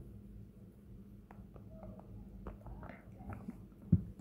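Low steady hum of a quiet room, with faint scattered ticks from handling a tablet touchscreen and one sharp click about four seconds in.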